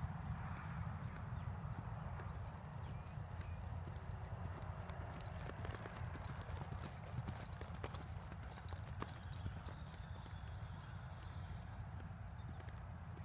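Hoofbeats of a two-year-old gray horse loping on soft, worked arena dirt. They are loudest as it passes close by midway, over a steady low rumble.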